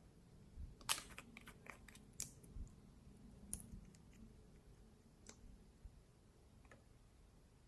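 Slime being handled by hand, giving scattered sharp clicks and pops, the loudest about a second in.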